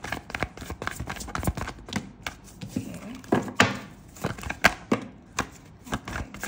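Tarot cards shuffled by hand: cards clicking and slapping against each other in quick, irregular taps, with a brief rustle of cards sliding together about halfway through.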